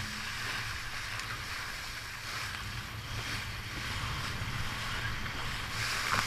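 Water rushing past the hull of a Laser 2 sailing dinghy moving fast, with wind buffeting the microphone; a louder burst of spray comes near the end.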